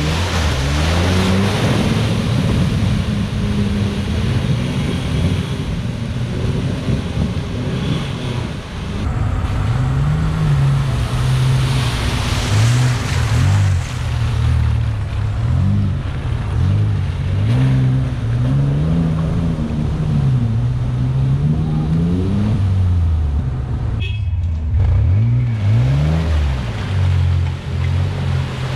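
Off-road 4x4 engines, among them a Mitsubishi Pajero's 3.0 V6, revved up and down again and again as the trucks push through deep mud and sand ruts. Mud and water splash and spray from the tyres underneath, with a brief drop-out about 24 seconds in.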